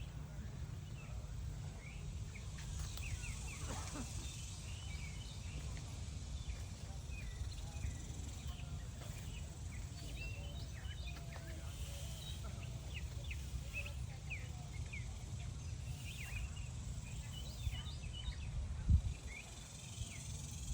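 Birds chirping in many short, scattered calls over a steady low outdoor rumble, with a brief thump near the end.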